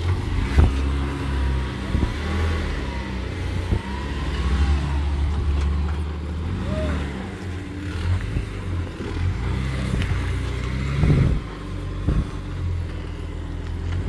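A lifted Jeep Wrangler JK Unlimited's V6 engine running under load and revving up and down as it crawls over boulders. A few sharp knocks come through over the engine.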